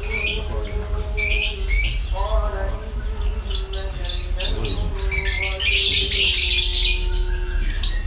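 Caged Javan bush lark (branjangan, Mirafra javanica) singing a fast, varied song of short high chirps and trills, thickest about six seconds in.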